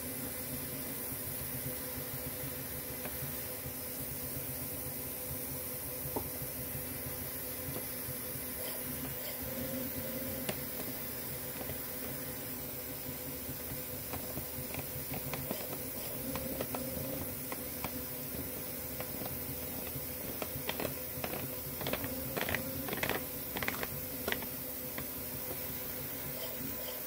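Delta 3D printer running a print: stepper motors humming with a few steady tones over the hiss of cooling fans. About three quarters of the way through comes a short run of quick clicks and ticks as the head moves.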